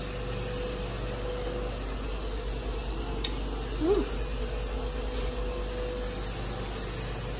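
Steady room background noise: a low hum and hiss with a faint held tone, and a brief squeak about four seconds in.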